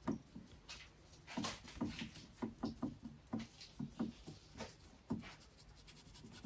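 Faint, irregular soft taps and scratches of a small paintbrush dabbing liquid patina onto carved, gold-leafed wood.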